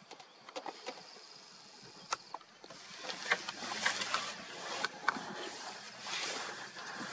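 Lion feeding on a warthog carcass: irregular wet crunching, cracking and tearing of flesh and bone, starting about three seconds in after a quieter stretch with a few faint clicks.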